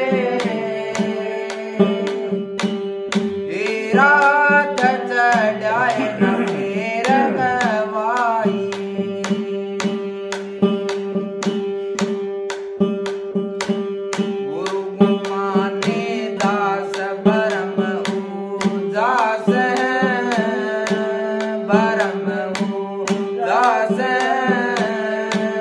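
A man's voice singing a devotional shabad in long, wavering phrases. He is accompanied by a plucked one-string ektara that holds a steady drone under a quick, even rhythm of plucks.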